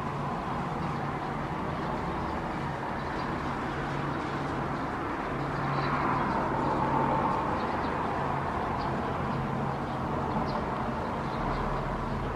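Distant vehicle noise: a steady rush that swells about six seconds in and then eases off, over a steady low hum.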